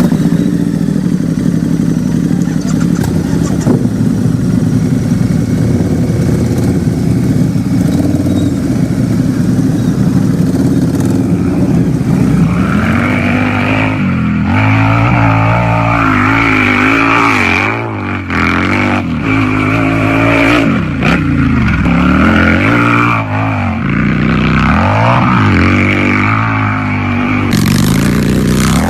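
Harley-Davidson motorcycle's V-twin engine idling steadily, then from about halfway through revved again and again, its pitch rising and falling with each twist of the throttle.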